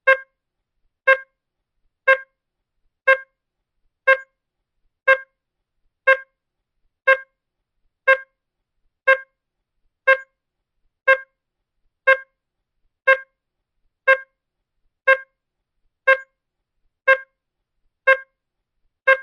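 Electronic beep repeating steadily about once a second, each beep a very short, buzzy tone with silence between.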